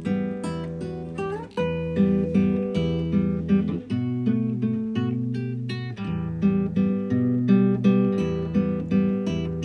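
Background music: acoustic guitar playing plucked notes and chords, each ringing and fading before the next.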